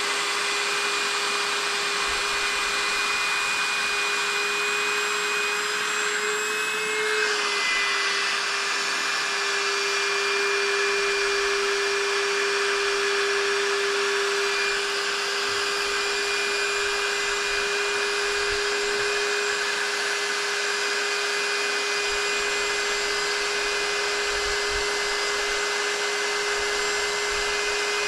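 A small motor running steadily with a whirring, air-moving noise and a constant hum. Its pitch wobbles and dips briefly about seven seconds in, then holds steady.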